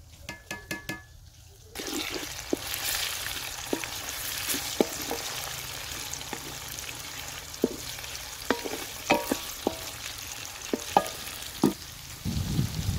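A few sharp knocks, then, about two seconds in, chopped tomatoes and green chillies hit hot oil in an aluminium pot and sizzle steadily. A wooden spoon knocks and scrapes against the pot now and then as it stirs.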